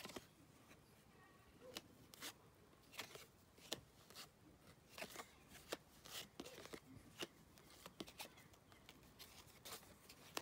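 Faint, irregular ticks and brief scrapes of 1975 Topps cardboard baseball cards being handled, slid and laid out one by one.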